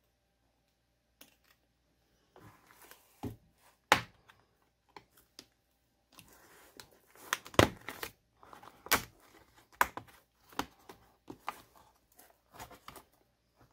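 Plastic bottom cover of a notebook being pried off by hand: a series of irregular sharp clicks and snaps as its clips pop loose, with softer scraping and crackling of plastic in between.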